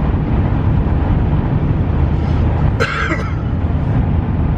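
Steady road and engine rumble heard from inside a moving car, with one brief vocal sound about three seconds in.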